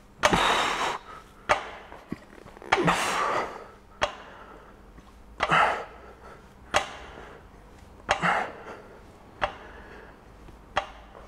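A man's heavy, forceful exhales from effort during single-leg hip thrusts, with several short knocks in between.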